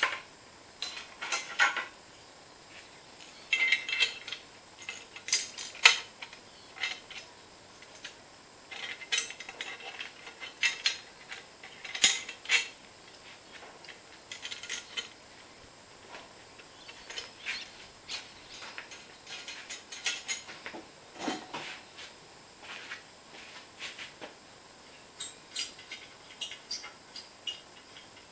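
Hand tools and loose metal exhaust parts clinking, clicking and rattling at irregular intervals as turbo pipework and an exhaust manifold are unbolted from an LS V8 engine, with one sharper metallic clank about twelve seconds in.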